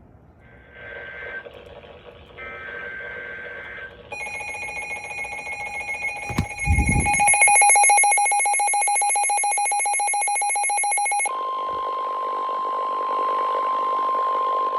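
Emergency Alert System tones: short warbling SAME data bursts, then a long harsh alert tone, then a single steady tone. A dull low thud sounds about six and a half seconds in.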